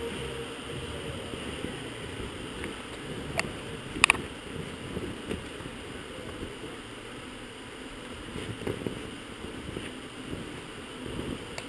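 A steady low rumble with a few sharp knocks, the loudest a quick double knock about four seconds in: a climber's hands and shoes on the holds of an indoor bouldering wall.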